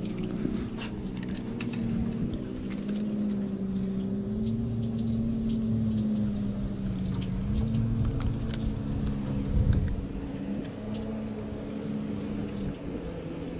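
An engine idling steadily, its hum wavering slightly in pitch, then stopping near the end. Small clicks and handling noises sound over it.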